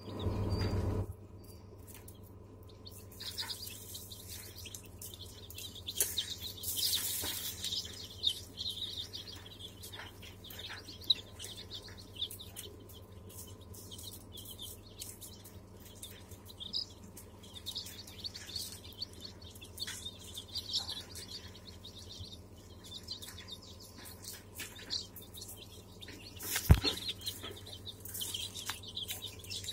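A brood of young chicks peeping, many short high chirps overlapping at random, over a steady low hum. A single sharp knock sounds near the end.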